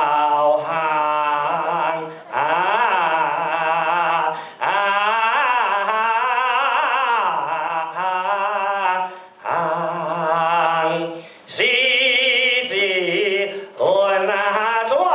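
A man singing a Teochew song into a microphone: long held notes with a wavering vibrato, in phrases broken by short pauses.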